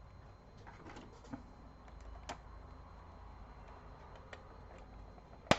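Scattered light plastic clicks and taps from handling and prying at a laptop's case and hinges during disassembly, with one sharp click near the end.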